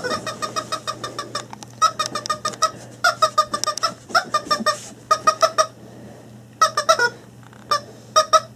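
Rubber chicken dog toy squeaking in quick runs of short squeaks, about ten a second, in several bursts with short pauses between them.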